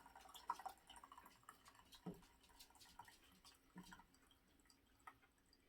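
Faint trickle and drips of tea poured from a teapot into a cup, thinning out after about four seconds.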